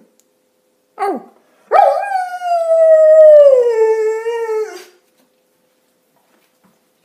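Keeshond and German Shepherd mix dog howling: a short falling yelp about a second in, then one long howl of about three seconds that slowly falls in pitch and drops off at the end.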